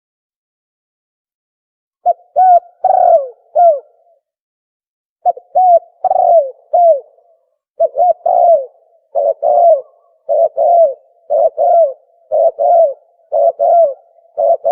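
Tukmo dove cooing: short low notes, each curving down in pitch, in quick pairs and threes. Nothing sounds for the first two seconds; from about eight seconds in the phrases repeat steadily about once a second. This is a call recording used to lure doves for hunting.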